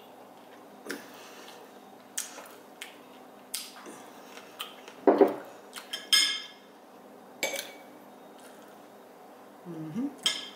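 A metal fork tapping and clinking against a plate in short, scattered strokes, with a louder knock about five seconds in and a sharper, ringing clink just after it.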